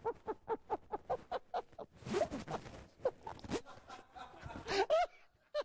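A man laughing in quick short bursts while a puppy licks his face, with a rustling, hissing noise about two seconds in from the puppy being handled.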